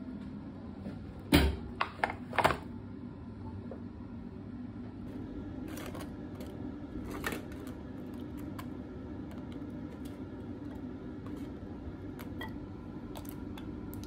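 Kitchenware being handled on a counter: a few sharp knocks and clatters about a second in, then light taps and clicks as bread slices and a knife are set into a bowl, over a steady low hum.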